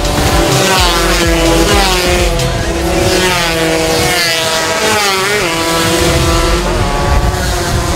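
Several small-displacement racing motorcycle engines running at full throttle. Their pitch climbs and falls back again and again as they shift through the gears.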